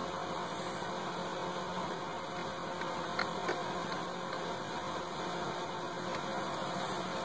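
Steady electrical hum over background hiss, with two faint ticks about three seconds in.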